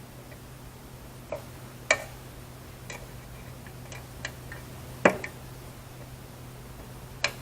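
Irregular sharp clicks and taps of small hand work on parts and tools, three of them louder than the rest, over a steady low hum.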